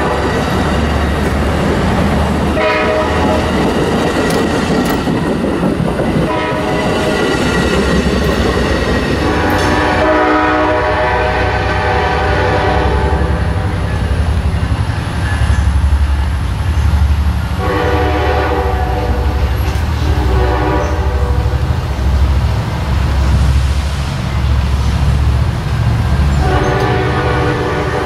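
Passenger cars rolling past with wheel-on-rail noise, then an Amtrak locomotive's multi-chime air horn sounding several blasts, some long and some short, over a steady low rumble.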